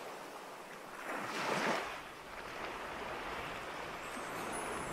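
Surf washing onto a sandy beach, a steady rushing that swells once about a second and a half in.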